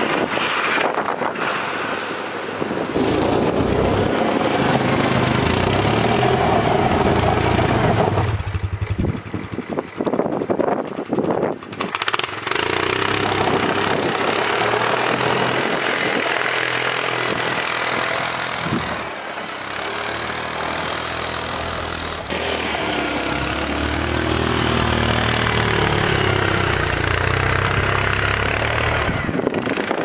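Four-wheeler (ATV) engine running under load while it pushes deep snow, revving up and easing off a couple of times. Its pitch rises and falls as it strains through the drifts.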